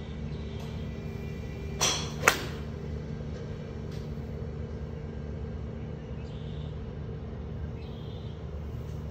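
Golf iron swing off a range mat: a brief swish about two seconds in, then a sharp click of the clubface striking the ball, the loudest sound, about half a second later. A steady low rumble runs underneath.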